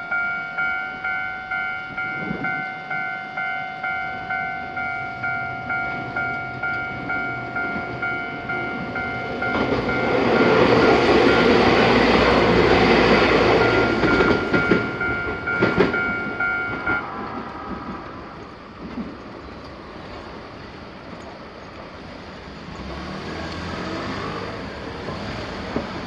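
A Japanese level-crossing alarm rings its repeating electronic ding, about two strokes a second. About ten seconds in, an electric train of the Ryutetsu Nagareyama Line passes through the crossing with a loud rush of wheels on rails for several seconds. The alarm stops about 17 seconds in, leaving quieter street traffic.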